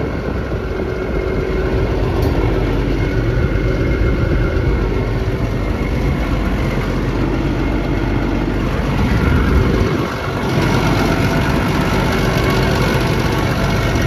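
Cummins diesel engine of an XCMG XE210CU track excavator idling steadily, with a few steady tones running over the engine noise. The sound dips briefly about ten seconds in.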